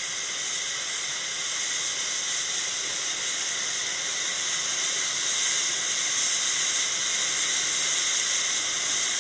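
Cog railway steam locomotive venting steam from the valves beneath its cylinders: a steady hiss that grows a little louder.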